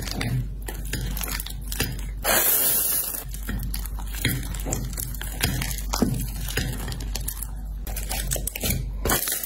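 Wet, bubbly clay-based slime being stirred and scraped in a ceramic bowl with a clear stick, then pulled and stretched by hand, giving a steady run of short sticky clicks and pops. A brief hiss sounds about two seconds in.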